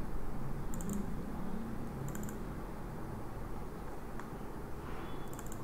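Computer mouse button double-clicking three times, each a quick pair of light clicks, over a faint low background hum.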